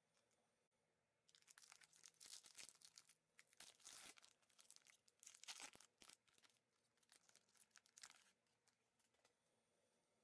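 Foil wrapper of an Epoch trading-card pack being torn open and crinkled by hand: a run of crackly tearing and crinkling that starts about a second in and stops about eight seconds in.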